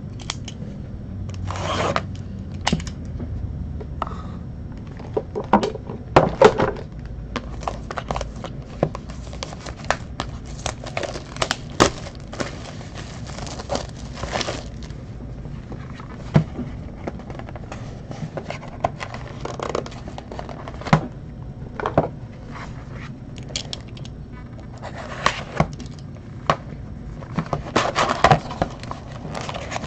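Clear plastic shrink wrap crinkling and tearing as it is peeled off a cardboard trading-card box, in irregular crackles and scrapes, with a denser run of crinkling near the end.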